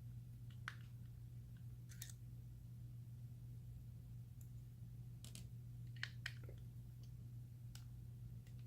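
Faint, scattered clicks of a small Torx 6 screwdriver working screws loose from a plastic microphone case, about six over several seconds, over a steady low hum.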